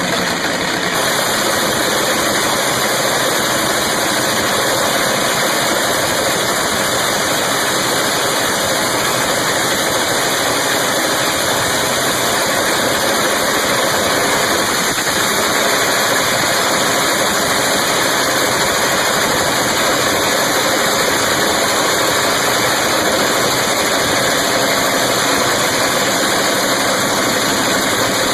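Turbocharged drag-race car engine running steadily at a constant speed, loud and without revving.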